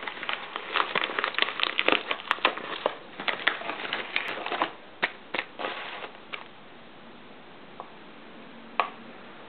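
Plastic postal mailer being opened and crinkled by hand: a dense run of crackling and rustling for about five seconds, then a few separate clicks as the plastic blister pack inside is handled.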